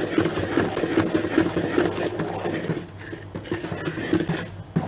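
Electric hand mixer running, its beaters whirring through thick chocolate cake batter in a plastic bowl. The motor hums steadily, getting quieter about three seconds in.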